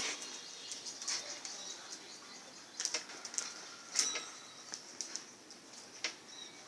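Scattered light taps and cloth swishes from a puppy playing with a cloth on a hard concrete floor, with a few sharper knocks.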